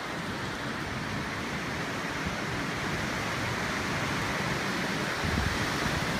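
Strong wind blowing steadily through trees, with low rumbling buffets on the microphone, a little louder in the second half.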